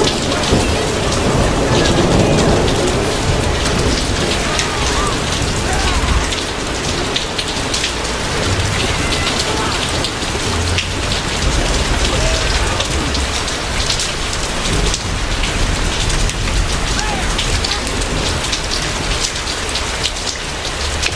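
Heavy rain pouring down with low thunder rumbles underneath, a dense steady downpour.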